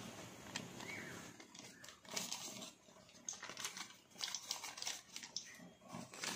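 Hot oil crackling and sizzling as a ring of donut dough is lowered into a frying pan on a square of baking paper, with the paper rustling as it is pulled out from under it. The crackling comes in irregular bursts, thickest in the middle.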